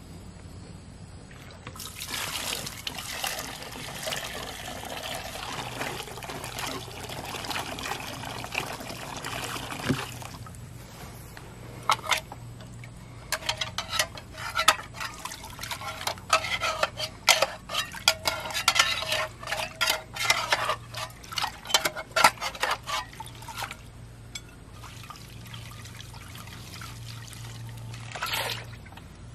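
Liquid pouring and splashing for several seconds, then a metal air-cleaner cup being swished and scrubbed by hand inside a metal bowl of wash liquid, with rapid clinks and knocks of metal on metal amid the sloshing. There is a brief splash near the end.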